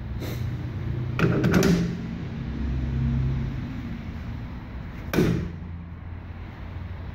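Metal knocks and rattles as an ATV wheel is fitted onto a wheel-balancing machine's shaft and clamped: a short cluster of rattling knocks about a second and a half in and one sharp knock about five seconds in, over a steady low hum.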